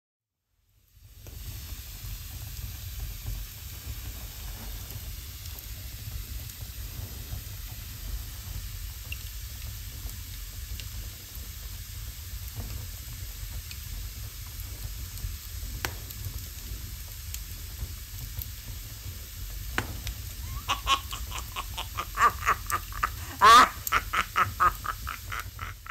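Fire burning: a steady roar with hiss and scattered crackles, turning to a denser run of loud crackles and pops over the last few seconds, with one loud burst near the end.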